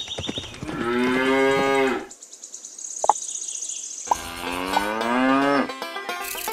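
Cow mooing twice, each moo about a second and a half long, the second starting about four seconds in, with a high, fast trill between them.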